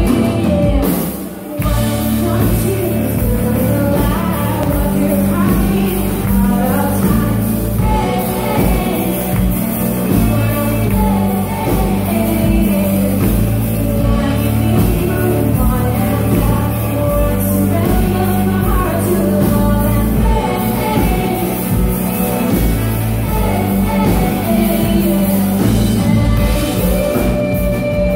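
A live pop-rock band plays while a female singer sings lead, heard from within the audience. Electric guitars, keyboards and drums sound under the vocal, with a loud, bass-heavy low end.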